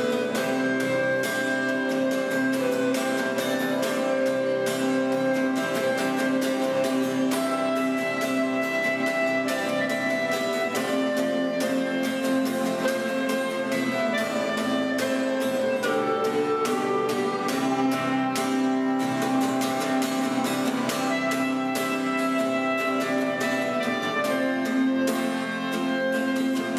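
Instrumental background music: melodic notes changing every second or so over a steady held low note.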